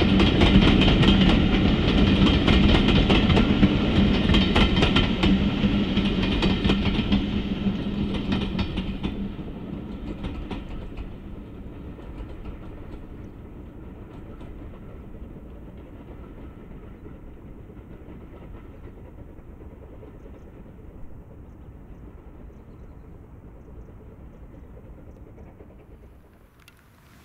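Steam locomotive hauling a train of passenger coaches past, loud at first and fading over the first ten seconds or so as the train draws away. A faint distant train sound is left, with a sudden drop near the end.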